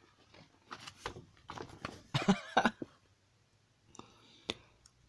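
A person's soft, muttered voice for a couple of seconds, then two short clicks about half a second apart.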